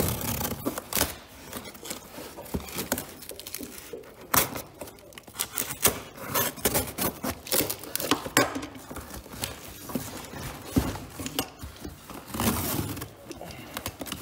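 Cardboard parcel being handled and opened: packing tape pulled and torn, and cardboard scraping and crinkling, with many sharp irregular knocks and crackles.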